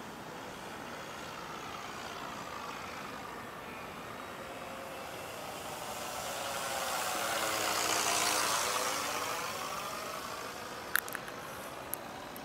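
Radio-controlled P-51 Mustang model with a sound-effects unit flying past: its engine-like noise swells to a peak about eight seconds in and then fades. A few sharp clicks near the end.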